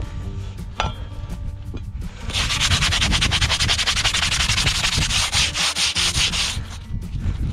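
Abrasive tool scraping rapidly and steadily against a hard surface, typical of farrier finishing work, for about four seconds starting about two seconds in.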